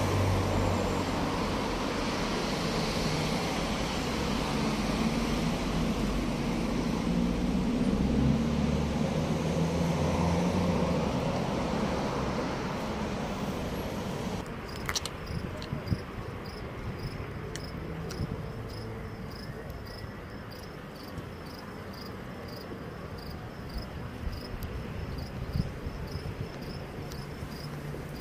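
Road traffic passing, a steady low rumble of car engines and tyres, for the first half. Then the sound cuts to crickets chirping at about two chirps a second, with a few sharp clicks.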